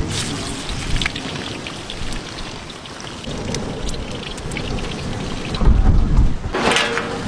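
Fritters of gram-flour batter deep-frying in a kadai of hot oil: steady sizzling and crackling, with a louder low rumble about six seconds in.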